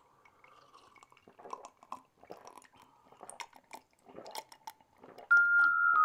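Quiet gulping and swallowing as two people drink down glasses of beer. Near the end, a louder run of bell-like mallet notes begins, stepping down in pitch.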